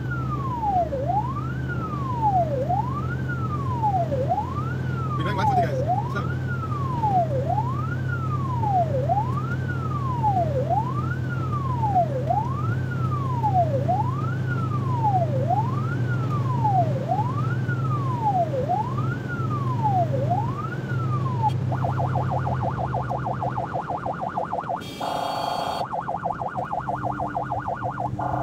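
Emergency response vehicle's electronic siren on wail, the tone sweeping up and down about once every second and a half, then switching to a rapid pulsing tone about three quarters of the way in, with a brief higher, harsher tone over it for about a second. Under it runs the steady drone of the vehicle's engine and tyres.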